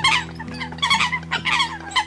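Lure recording of Eurasian coot calls: short, sharp calls repeated about three or four times a second, over background music with steady held low notes.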